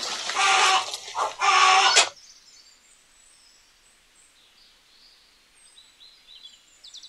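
Loud harsh animal calls in two bursts that cut off abruptly about two seconds in, followed by faint high songbird chirps and a short rapid trill near the end.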